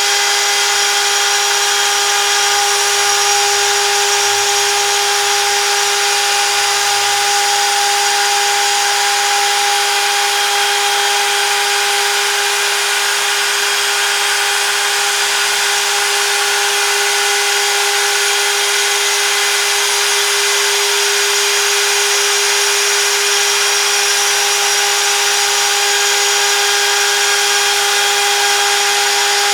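CNC router spindle running while cutting: a steady whine at one constant pitch over an even hiss.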